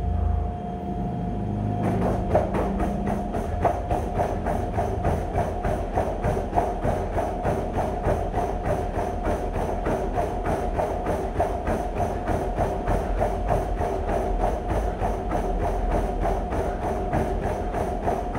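Treadmill running with a steady motor whine. About two seconds in, a sprinter's rapid, even footfalls start pounding on the moving belt.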